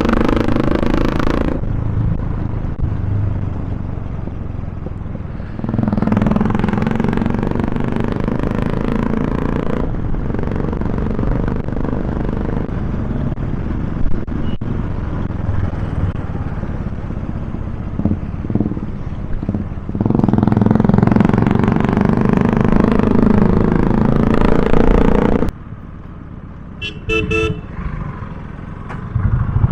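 Motorcycle engines running on the move during a group ride, in stretches that change abruptly from one to the next. A horn toots a few times near the end.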